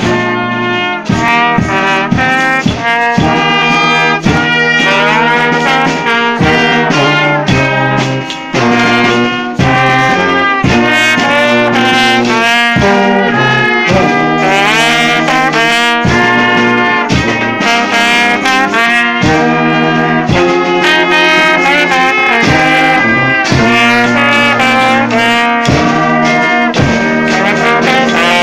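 Brass band of euphoniums, trombone and trumpet playing loudly together in harmony, with many short notes.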